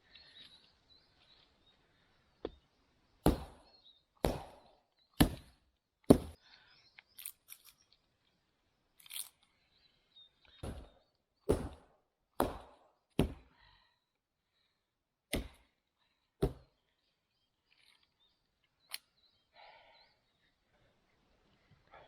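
Husqvarna hatchet chopping firewood: about fifteen sharp chops into wood, roughly a second apart with a few short pauses.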